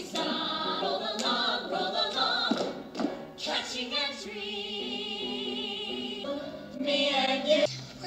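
A chorus of young voices singing a stage-musical number together, holding one long steady chord about halfway through, with a short louder passage near the end.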